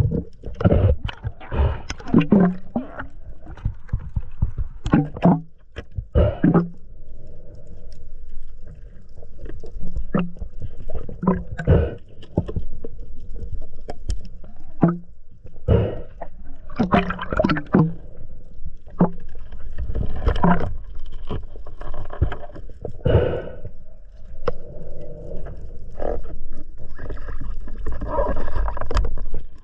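Water moving and gurgling around an underwater action camera, with irregular knocks and clicks from handling a speargun and gear.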